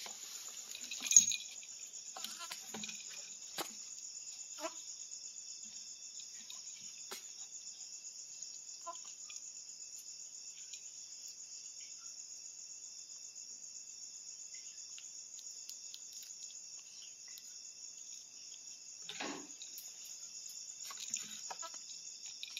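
Night insects chirring in a steady, high, continuous trill. A sharp click comes about a second in, and a few faint ticks and taps follow.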